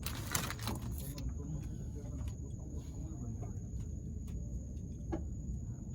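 Outdoor river ambience: a steady high-pitched insect drone over a low rumbling background, with a few faint clicks.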